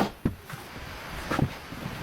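Two single dull knocks, about a second apart, over a faint steady background.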